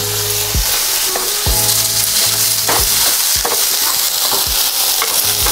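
Drumstick flowers sizzling in hot oil with fried onions and spices in a nonstick pan, stirred with a wooden spatula that scrapes and knocks against the pan every half second or so.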